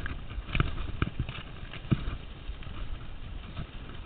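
Mountain bike rattling over a bumpy dirt trail: irregular clunks and knocks from the bike, the loudest about half a second, a second and two seconds in, over a steady low rumble of riding.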